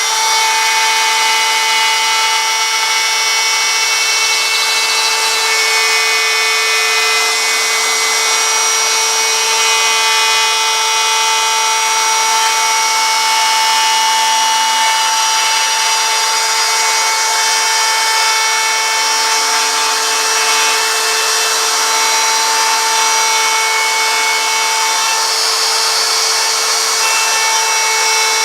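Wood router running at a steady high speed while cutting into a wooden sign blank, a constant whine throughout.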